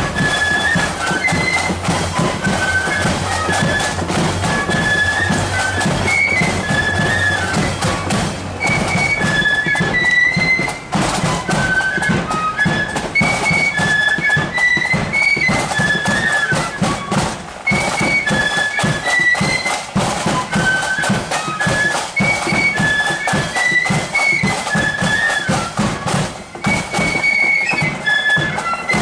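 Marching flute band playing a tune: a high flute melody over steady drumming.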